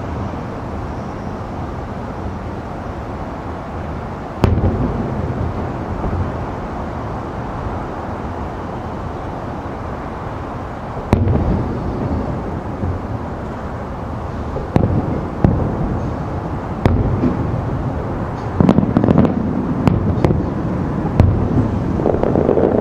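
Aerial firework shells bursting, heard from about 2.5 km away: a single boom about four seconds in, another around eleven seconds, then a quickening run of bursts through the last third, over a steady background rumble.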